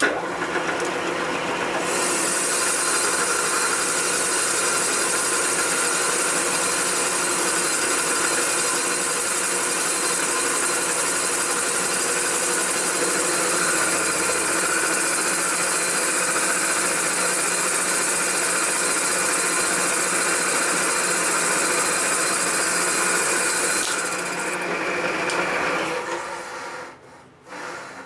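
Milling machine spindle running a cutter around the welded aluminium exhaust spigot of a Harley-Davidson panhead cylinder head, a steady machining noise from a 50-thou pass that turns the spigot down toward its standard 2.050-inch size. The high-pitched cutting sound drops out near the end and the machine winds down to a stop.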